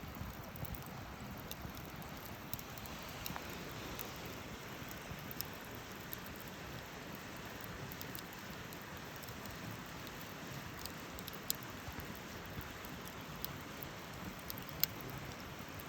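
Campfire burning: a steady hiss with scattered sharp crackles and pops, the loudest two in the last few seconds.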